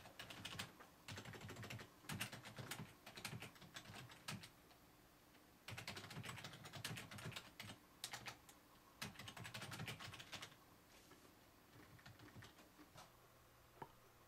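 Faint typing on a computer keyboard: runs of rapid key clicks with short pauses, thinning to a few scattered taps over the last few seconds.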